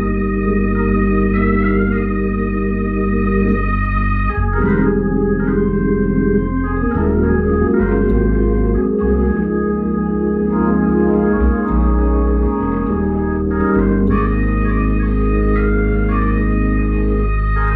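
Hammond-style two-manual organ playing slow gospel worship music: held chords that change every second or two over a steady bass.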